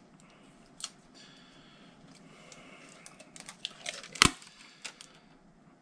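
Kapton tape being pulled from its roll and handled, a faint crinkly tearing, with a few light clicks and one sharp knock about four seconds in.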